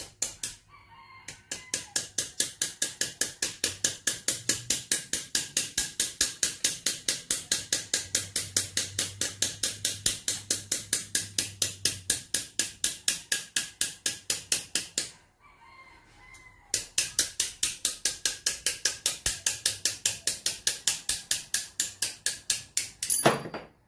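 A small power tool runs in two long bursts with a faint motor whine, knocking sharply and evenly about four or five times a second against a valve that is bent and stuck in a Suzuki Hayabusa cylinder head.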